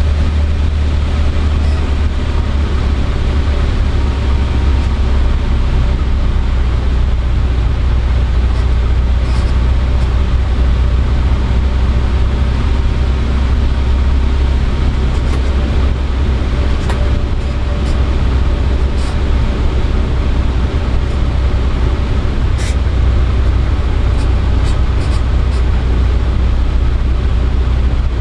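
Cessna 150D's Continental O-200 four-cylinder engine and propeller droning steadily, heard inside the cockpit, on final approach to land. A few faint short ticks sound over the drone in the second half.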